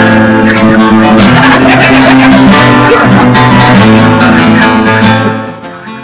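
Strummed acoustic guitar music, loud and steady, dropping away about five seconds in.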